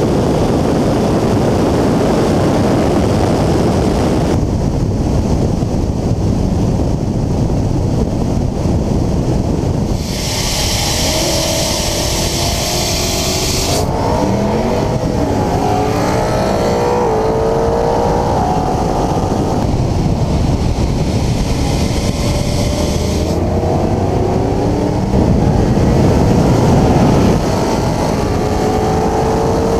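Car at highway speed heard from inside the cabin, with heavy wind and road rush; from about a third of the way in, the engine note climbs again and again with short breaks as it accelerates up through the gears.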